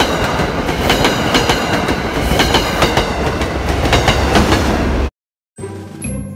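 MBTA push-pull commuter train passing close by, its diesel locomotive at the rear, with the wheels clicking rhythmically over rail joints. The sound cuts off abruptly about five seconds in, and keyboard music begins just before the end.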